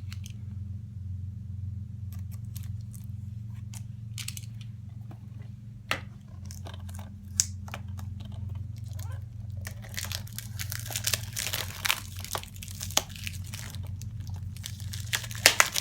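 Plastic shrink-wrap being cut open and peeled off a DVD case: scattered small clicks and scrapes at first, then steady crinkling and tearing of the plastic from about ten seconds in, over a low steady hum.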